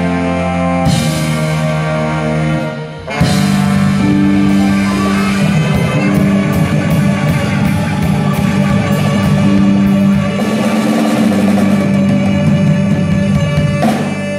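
Live rock band playing: drum kit, electric guitars, bass and horns (saxophone and trombone) on held chords. The sound drops briefly about two and a half seconds in, then the full band comes back in loudly and plays on steadily.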